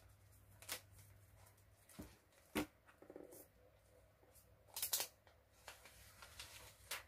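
Faint handling sounds as a MacBook Air is lifted out of its cardboard box and turned over: a handful of soft, separate clicks and rustles spread through, over a faint low hum.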